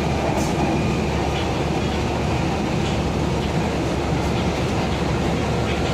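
Kochi Metro train running along the track, heard from inside the carriage: a steady, even rumble and hiss.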